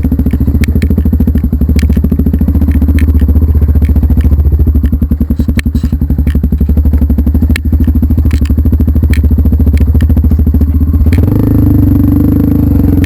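Engine running at low revs with a fast, even pulsing beat and scattered clattering knocks. Its note changes about eleven seconds in.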